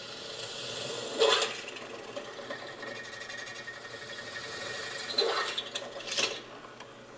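Vertical milling machine spindle running while a 13/32-inch twist drill is hand-fed down through an RV step support leg. The cut grows briefly louder about a second in and twice more around five to six seconds in.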